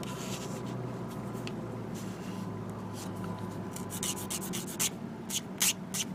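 Sanding stick rubbed against a small plastic model-kit part in short, scratchy strokes, sparse at first and then in a quick run about two-thirds of the way in.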